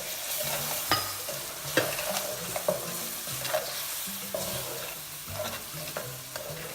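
Onions, garlic and red bell pepper sizzling in oil in a pan while being stirred with a utensil, which scrapes and taps against the pan several times.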